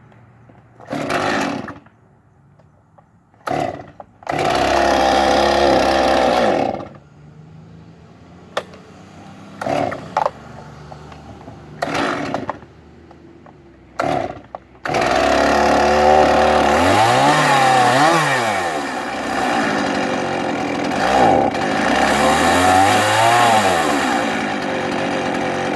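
Stihl MS 311 two-stroke chainsaw being started after a tune-up with a new fuel filter, spark plug and air filter. Short bursts and a brief run that stops are followed by more bursts, then the saw catches about fifteen seconds in and keeps running, its revs rising and falling twice.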